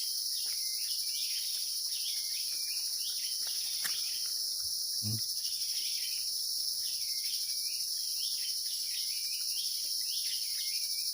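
Forest insect chorus: a steady high-pitched drone of crickets or cicadas, with a bird giving short calls over and over.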